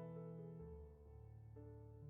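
Soft background piano music, quiet and slow, with sustained notes changing every half second or so.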